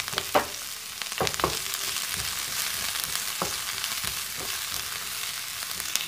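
Diced green capsicum sizzling in hot oil in a frying pan, with a steady hiss. A wooden spatula stirs it, knocking and scraping against the pan several times.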